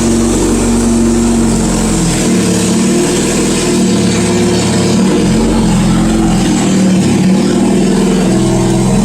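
Jeep engine running loud at low revs while being backed up, its pitch shifting a little as the throttle changes; the muffler and exhaust pipe are off, so it runs with an open exhaust.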